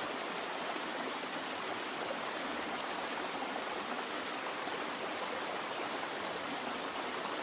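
Steady rushing and splashing of flowing water, like a stream or small cascade.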